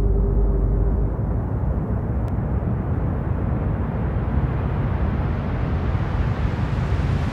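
Sound-design rumble for a logo intro: a steady low roaring whoosh, like a passing jet, whose hiss slowly rises in pitch as it builds.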